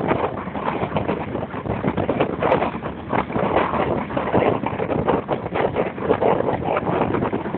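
Wind buffeting the microphone out of a moving vehicle's open window, with vehicle and road noise beneath: a loud, uneven rushing flutter.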